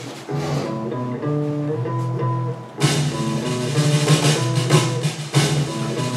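Soundtrack music of a video played back in a lecture room: held chords over a bass line, with drums and cymbals coming in about three seconds in.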